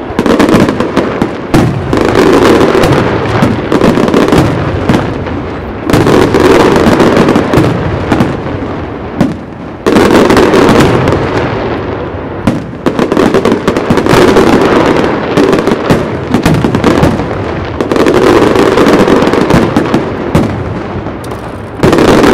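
Aerial fireworks display: a continuous barrage of shells bursting, dense bangs and crackle, surging to its loudest in waves about every four seconds.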